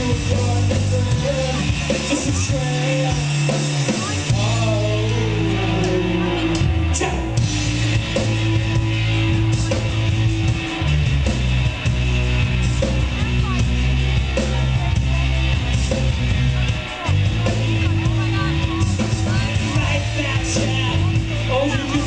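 Live rock band playing: electric guitar, electric bass and a Tama drum kit, with a lead vocal sung over them.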